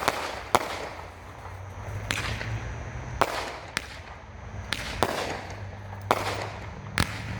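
Lumen, a 200-gram, 24-shot consumer fireworks cake by Hardcore Pyro, firing. There is a sharp report roughly every second, each trailing off in a fading hiss.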